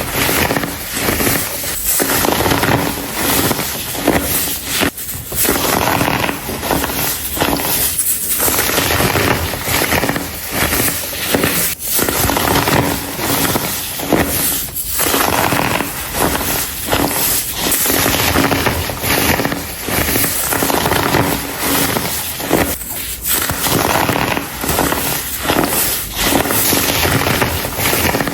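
Compacted, dyed baking soda being crumbled: a dense, crisp crackling crunch, broken by short pauses every few seconds.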